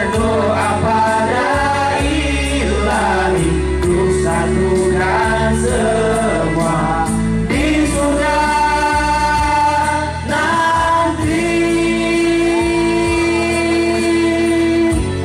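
A mixed vocal group of men and a woman singing together into microphones over a musical accompaniment. The voices hold long sustained notes in the second half.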